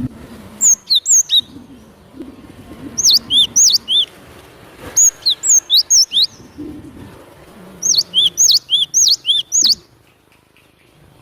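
Cinereous tit (gelatik batu) singing: four bursts of quick, repeated high notes, each sweeping downward in pitch, with pauses of a second or two between bursts. The song stops about a second and a half before the end.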